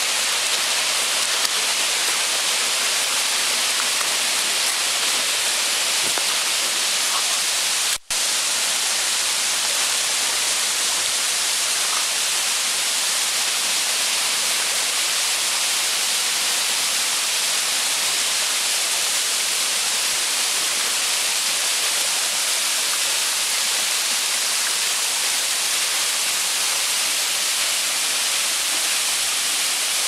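Steady rushing hiss of a mountain creek and waterfall, cutting out for an instant about eight seconds in.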